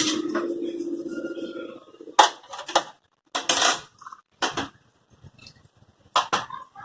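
A metal spoon stirring milk in a pan: a steady scrape for about the first two seconds, then several separate sharp clinks against the pan.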